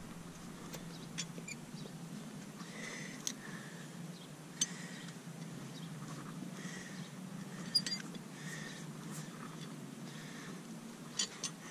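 A few short, sharp clicks and snaps of hoof nippers working on a mule's hoof, taking it down a little at a time while probing for an abscess. Faint, short high chirps recur every second or two.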